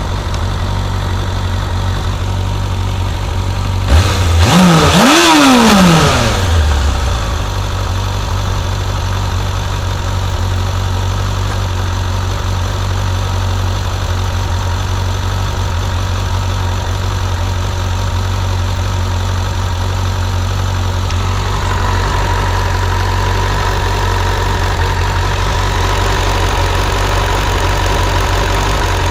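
Suzuki GSF 600 Bandit's inline-four engine idling hot, with the tiny ticking from the cylinder head that the owner is showing. The throttle is blipped once about four seconds in, and the revs rise and fall back to idle. A steady higher hum joins about 21 seconds in.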